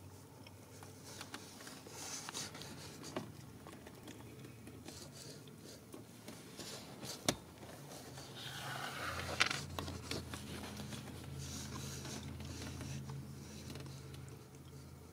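Faint rustling and scraping of a Ragdoll mother cat licking and grooming her nursing kittens, with two sharp clicks in the middle and a low steady hum through the second half.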